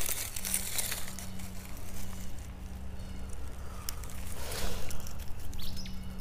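Dry leaf litter and clothing rustling and crackling as a person crouched on the forest floor shifts about, with a steady low hum underneath.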